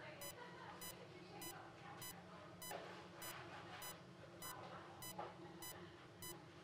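ICU bedside patient monitor beeping regularly, short high beeps a little under two a second, with faint rustling of handling underneath.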